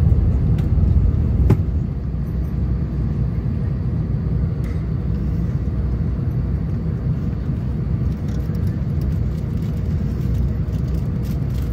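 Steady low rumble of an Airbus A350-1000 airliner in descent: engine and airflow noise with no distinct tones.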